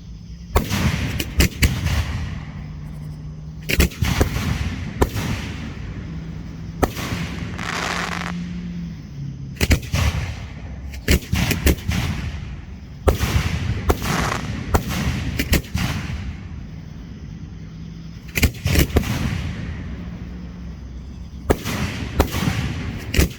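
Fireworks going off: clusters of sharp bangs every couple of seconds, each followed by a fading hiss.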